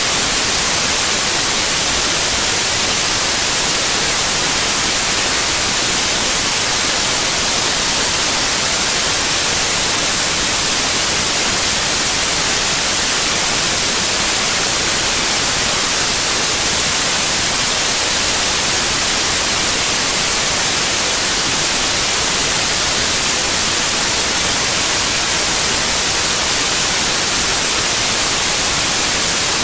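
Steady electronic static: an even white-noise hiss, strongest in the treble, that never changes in level.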